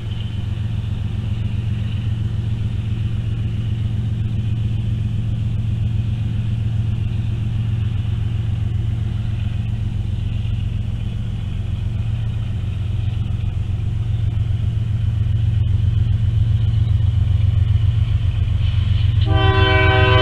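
Low, steady rumble of an approaching train that grows gradually louder. About 19 seconds in, the multi-chime steam whistle of Nickel Plate Road 765, a 2-8-4 Berkshire steam locomotive, starts to blow, several tones sounding together.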